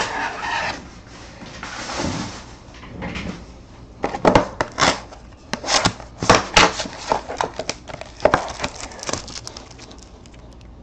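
A sealed trading-card box being opened by hand: rustling and crinkling of its wrapping at first, then a run of sharp cardboard clicks and snaps, quieter near the end.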